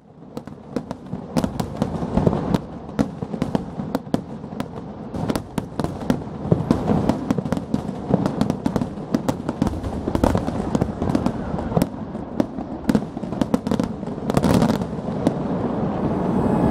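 Fireworks display's closing barrage: a dense, continuous run of bangs and crackling shell bursts that grows steadily louder.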